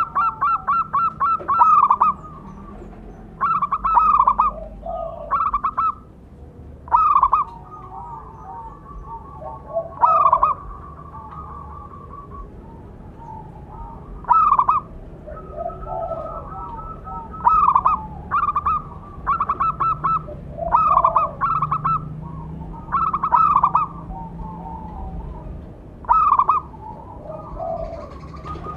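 Zebra dove cooing: short bursts of quick, staccato notes repeated every couple of seconds, with fainter cooing between the bursts.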